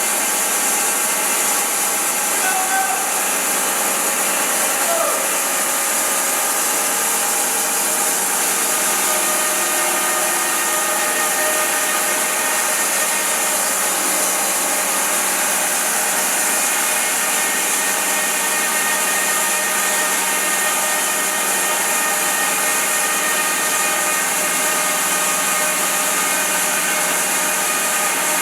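Wide-cut bandsaw mill running steadily, its band blade sawing through a large silver maple round, a constant hiss over a steady machine hum.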